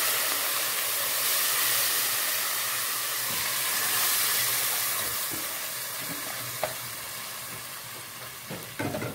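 Washed lentils and water poured into a hot pot of fried vermicelli, onion and rice, hissing and sizzling hard at first and dying down steadily as the pot cools, while a spatula stirs. A couple of short knocks come near the end.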